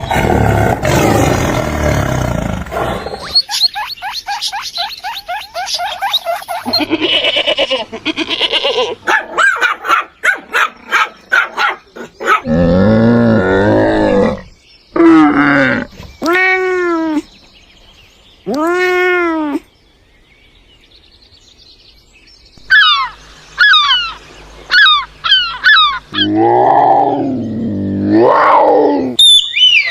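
A string of different animal calls, one after another. It opens with a loud, rough roar, then comes rapid pulsing calls, three rising-and-falling cries near the middle, quick high chirps, and a low wavering call near the end.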